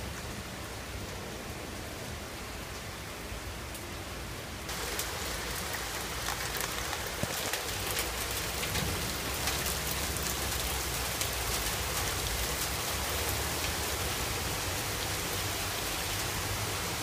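Heavy thunderstorm downpour pouring steadily onto cars and pavement. About five seconds in it grows suddenly louder and brighter, with many sharp ticks of drops striking hard surfaces.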